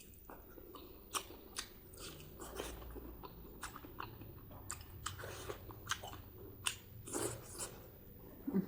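Close-miked chewing of spicy pork and white rice: irregular sharp mouth clicks and bites, several a second, a few of them louder.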